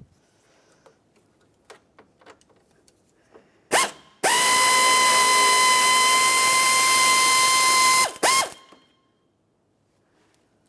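Power ratchet with a Phillips bit backing out a grille trim screw. There is a brief blip about a third of the way in. Then the tool runs steadily for about four seconds, its whine rising as it spins up and dropping as it stops, with one short burst after it. Light clicks of handling come before it.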